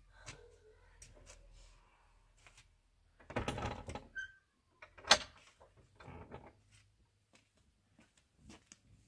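Old wooden plank door pushed shut, a scraping rattle of wood for about a second, then a single sharp clack as it is fastened about five seconds in.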